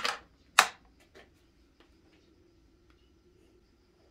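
Toggle switches on a homemade DC motor control box clicking as the power is switched on: two sharp clicks about half a second apart, then a few faint ticks. A faint steady hum follows.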